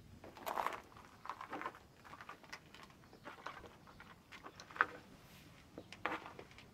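Footsteps and scuffing on a dusty, debris-strewn attic floor: irregular crunches and scrapes, with one sharp click a little under five seconds in.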